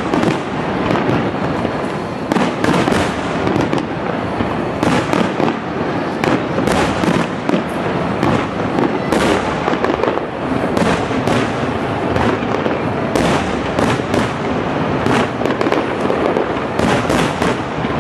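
Aerial firework shells bursting in rapid succession: a dense, unbroken run of booms and crackles, several bursts a second.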